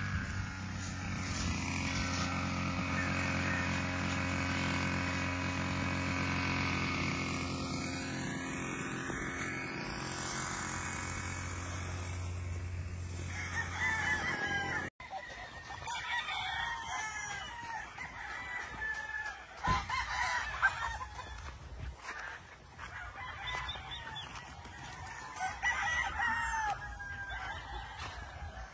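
A steady drone with even tones fills the first half and cuts off suddenly. Then several gamefowl roosters crow again and again, with hens clucking in between.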